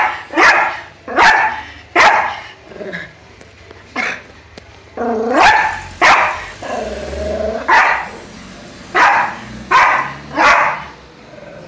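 Small long-haired dog barking at a bee in short, sharp yaps roughly once a second, with a couple of longer barks whose pitch wavers in the middle.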